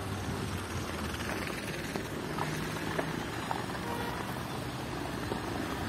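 Steady street ambience: road traffic running past, with a faint engine hum at times.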